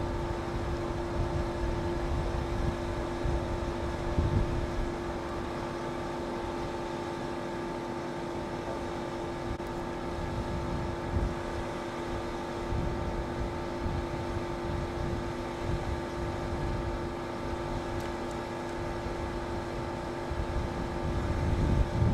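Parked vehicle's engine idling, a steady unchanging hum over a low, uneven rumble.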